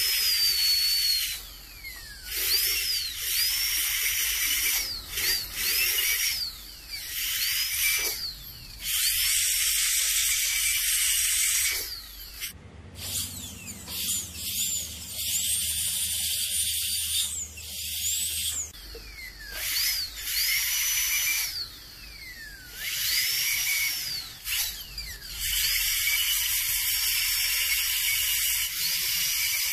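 High-speed dental air-turbine handpiece cutting on front teeth, running in repeated bursts with a high whine over a steady hiss. The pitch slides up as each burst starts and falls away as the turbine winds down between them.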